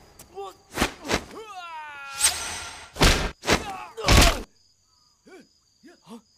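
Martial-arts fight sound effects: a string of sharp whacks and thuds of punches and blows, with a pained cry sliding down in pitch about one and a half seconds in. After about four and a half seconds the blows stop, leaving crickets chirring steadily and a few short grunts.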